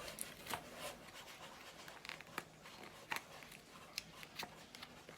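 Faint scattered taps, clicks and rustles of craft materials being handled while a milk carton is painted and decorated.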